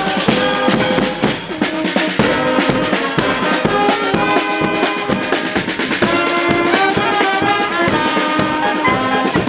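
A marching band playing a tune on brass (tuba and trumpets), clarinet and saxophone over a steady beat of bass and snare drums.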